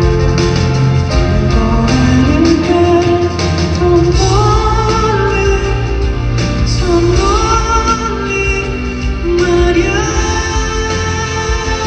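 Live band music from a concert performance: a sliding, gliding lead melody over a steady low bass.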